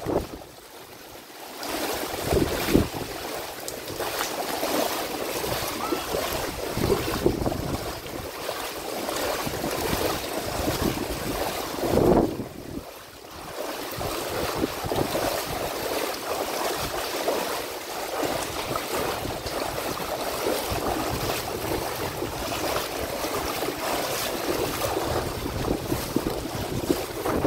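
Rain and floodwater rushing and sloshing in a street, with wind buffeting the microphone; one louder swell of water noise comes about halfway through.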